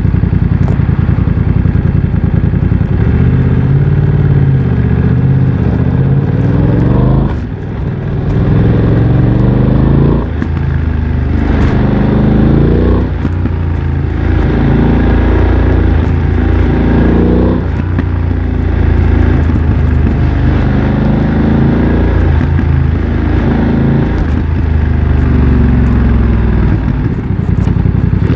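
BMW F900 XR parallel-twin engine through a MIVV X-M1 aftermarket exhaust, accelerating and shifting up several times: the pitch climbs, then drops sharply at each quickshifter gear change.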